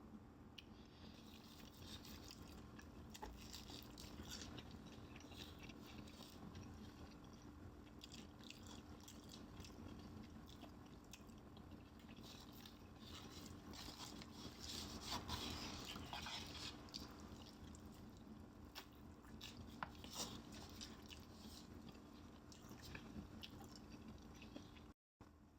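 Close-miked chewing and biting of fried chicken, with soft crunching of the crust, busiest around the middle, over a faint steady hum.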